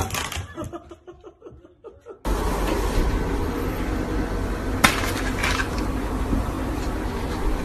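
A framed pet-door panel clattering onto the floor and rattling to a stop. After about two seconds it gives way to a steady loud hiss of background noise, with one sharp click near five seconds.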